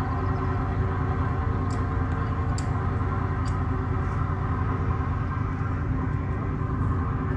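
Steady engine-like hum with a low, even drone that does not change, and a few faint ticks about two and three seconds in.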